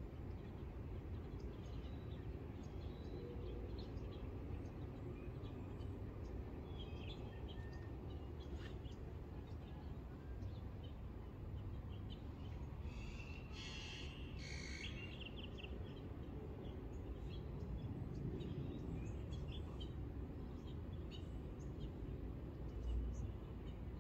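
Songbirds chirping and calling at dawn, scattered short chirps with a burst of rapid chirping about halfway through, over a steady low background rumble.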